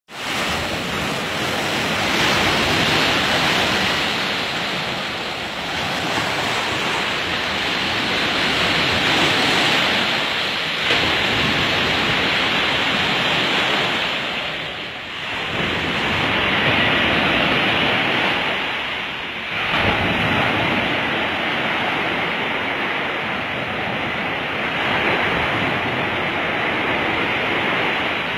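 Rough sea surf rushing and breaking against the shore, a loud steady wash of water that swells and eases, dipping briefly a few times.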